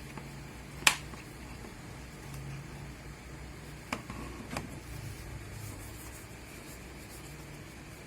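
A few sharp clicks from handling the Peugeot multifunction display unit as it is put back together after repair: the loudest about a second in, two lighter ones around four seconds in, over a low steady hum.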